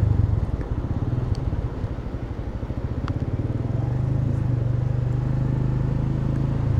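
Motorcycle engine running as the bike rides along a road: a low, steady engine note with rapid firing pulses.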